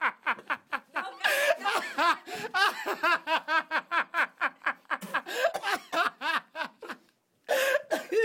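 People laughing hard in rapid, choppy bursts of voice, with a brief break to silence about seven seconds in.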